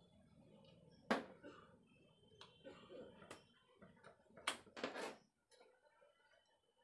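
Sharp handling clicks and knocks as wiring is disconnected: a crocodile clip is released from a battery terminal and a mains plug is pulled from its socket, with the loudest click about a second in and a cluster of knocks about four and a half to five seconds in. A faint low hum underneath cuts off just after the knocks.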